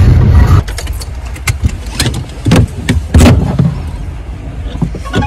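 Cabin noise inside a Honda car: a loud low engine-and-road rumble for the first half-second, then a quieter rumble broken by a handful of sharp knocks and rustles.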